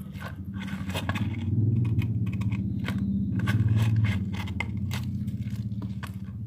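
Homemade glue slime being kneaded and stretched in the hands: irregular sticky clicks and crackles, over a steady low hum.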